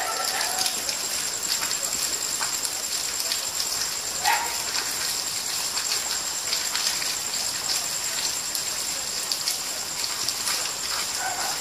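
Steady rain, an even hiss with many individual drops striking close by. A steady, high, finely pulsing tone runs through it, and a brief mid-pitched sound stands out about four seconds in.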